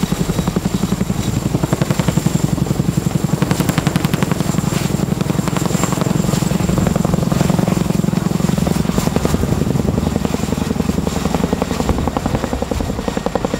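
CH-47 Chinook helicopter running, its tandem rotors beating in a rapid, steady, even pulse over a constant engine and rotor noise.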